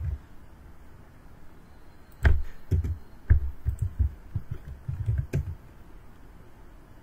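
Typing on a computer keyboard: a run of irregular keystrokes starting about two seconds in and stopping a little after five seconds.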